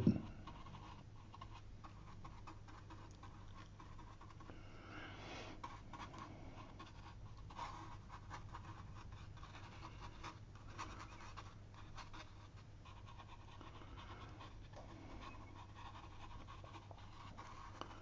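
Faint, soft, irregular swishes of a round watercolour brush working over damp paper, over a low steady hum.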